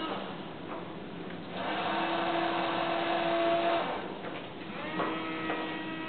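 Servo motors of a small robotic arm whirring as the arm moves, a steady whine from about a second and a half in to nearly four seconds, then again for about a second near the end.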